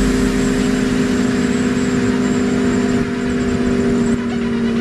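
Honda CBR600 sport bike's inline-four engine running at a steady cruise, a constant drone, with wind and road noise over the rider's mic.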